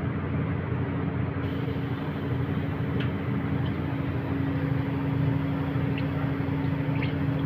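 Steady hum of commercial kitchen machinery holding one steady low tone, with a light hiss that joins about a second and a half in and a few faint clicks.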